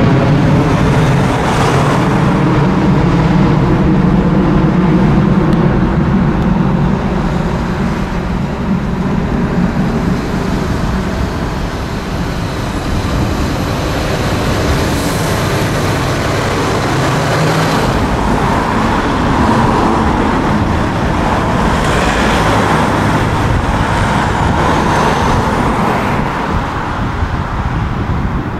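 Jet engines of a four-engined Airbus A340-313 (CFM56 turbofans) at take-off/climb power as the airliner climbs away: a loud, steady rumble whose deep tones fade over the first half, leaving a broad rushing noise.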